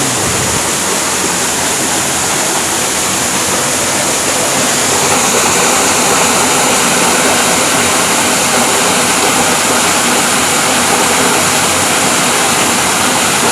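Waterfall: loud, steady rush of falling water, growing a little louder about four seconds in.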